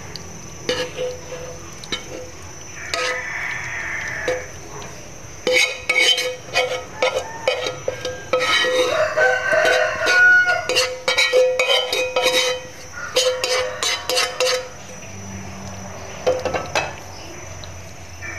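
A metal spoon scraping and tapping against a nonstick frying pan and a ceramic bowl as minced-pork sauce is pushed out of the pan, in quick clicks and scrapes that come thickest in the middle stretch.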